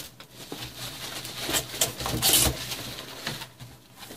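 Plastic wrapping and bubble wrap crinkling and rustling as packed parts are handled in a cardboard box, with the loudest rustles about one and a half to two and a half seconds in.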